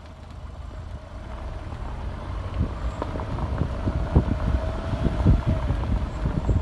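Wind buffeting the microphone: a low rumble with sharp gusts that builds up over the first few seconds, over a faint steady hum.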